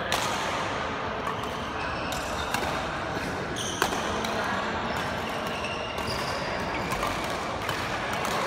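Badminton rally in a large, echoing hall: rackets strike the shuttlecock with several sharp hits, the loudest just under four seconds in. Short squeaks of shoes on the court floor come between the hits, over a steady background hiss.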